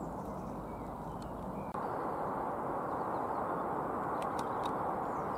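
Steady outdoor rushing background noise that gets a little louder about two seconds in, with a few faint bird chirps.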